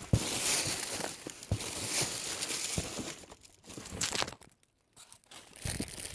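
Plastic bags and paper trash crinkling and rustling as they are handled and pulled through in a dumpster, with a few short knocks and a brief pause partway through.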